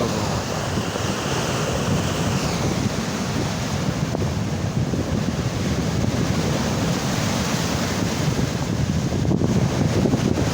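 Sea waves washing, with wind buffeting the microphone in a steady low rumble.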